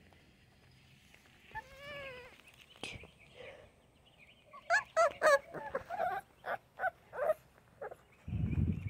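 Puppies whining and yipping: a wavering whine about two seconds in, then a quick run of short, high yips from about four and a half to seven and a half seconds in. A low muffled rumble near the end.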